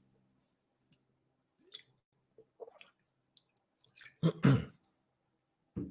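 A man drinking water from a plastic bottle: faint small clicks and swallows, then short louder mouth and throat sounds about four seconds in and again near the end.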